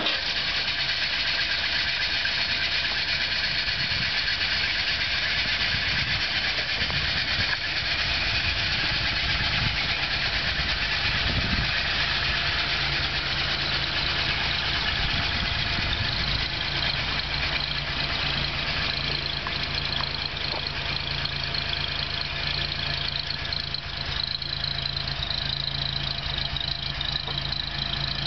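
The 1942 Studebaker Commander's 226 cubic inch flathead six-cylinder engine idling steadily, with an even low exhaust note.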